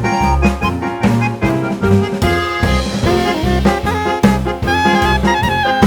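Upbeat instrumental background music with a steady beat, in a jazzy, swing-like style.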